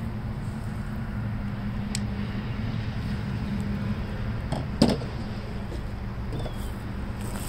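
Steady low mechanical hum from a running motor or engine, with one sharp knock about five seconds in.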